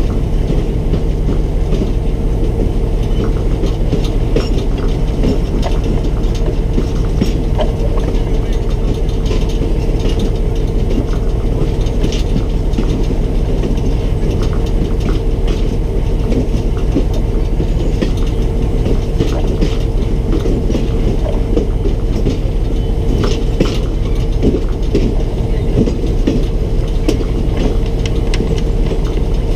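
Excursion train rolling along the track: a steady running rumble with a constant hum, dotted with irregular small clicks and clanks from the wheels and cars.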